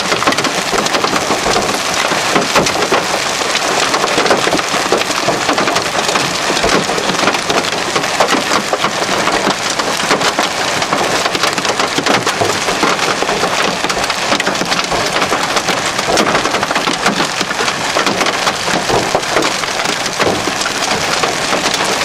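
Heavy rain and hail falling. A dense steady hiss of rain is shot through with many sharp cracks and knocks as hailstones, some of them large, strike hard surfaces.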